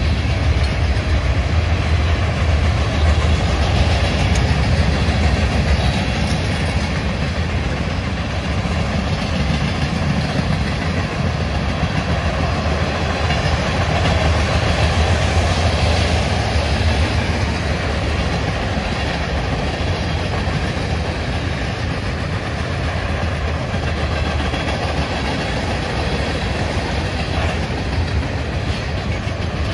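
Freight train cars rolling past: boxcars, covered hoppers, log-loaded flatcars and tank cars, their steel wheels running steadily on the rails with a strong low rumble.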